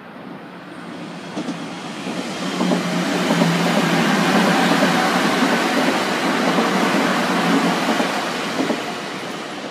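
Nankai 50000 series Rapi:t electric train passing the platform at speed: a rushing rumble of wheels on rail that builds, stays loud for several seconds, then fades as the train moves away, with a couple of sharp clacks over the rail joints.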